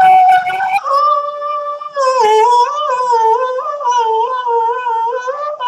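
A high-pitched voice singing long, wavering wordless notes, breaking off briefly about a second in and again near two seconds before going on.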